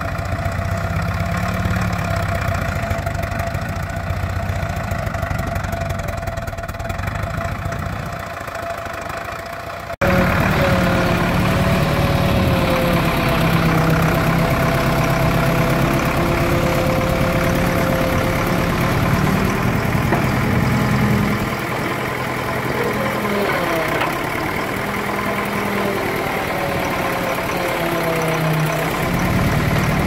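Diesel engine of an old JCB Model 4 backhoe loader running steadily while the backhoe digs, its note wavering slightly. It gets louder abruptly about a third of the way in.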